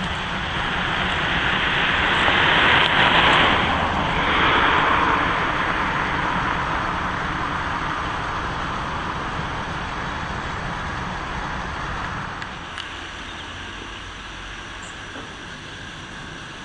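Steam train running past, a steady rush of the train on the line that swells about three seconds in and then slowly fades as it moves away.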